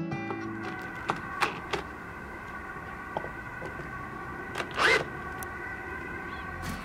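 Cordless drill running steadily as it bores into a painted wooden block, with a few light clicks and a short, louder burst of noise about five seconds in.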